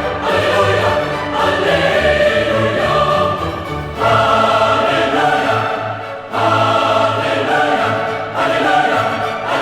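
Music of a choir singing in long held phrases, with fresh phrases starting about four and six seconds in.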